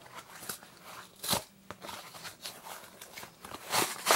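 Cardboard shipping box being opened and its packaging handled, giving a string of crinkling, tearing and crunching noises. The loudest crunches come about a second in and again near the end.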